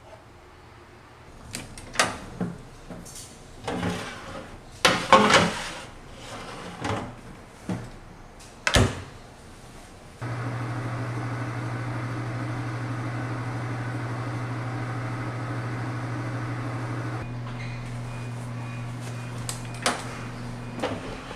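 A metal pan being set into a countertop oven, with a run of knocks and clicks as it goes in and the door shuts. About ten seconds in, the oven switches on and runs with a steady hum, which drops in level and changes pitch about seven seconds later. A couple more clicks sound near the end.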